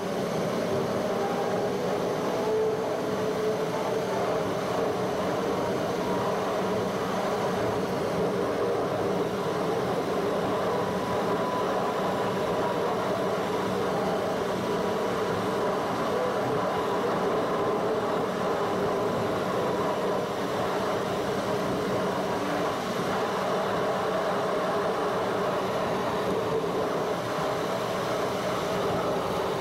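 Steady road and engine noise heard inside the cabin of a moving car, even and unchanging throughout.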